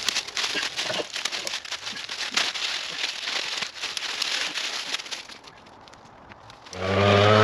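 Dry leaves and sticks crackling and rustling as brush is gathered by hand off the forest floor. Near the end a small leaf-blower engine starts and runs loudly and steadily.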